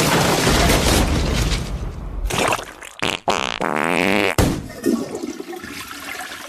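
A run of cartoon sound effects played one after another: a long, dense rushing noise for about the first two and a half seconds, then several short comic effects that start and stop abruptly, with a warbling one and a sharp hit a little past the middle.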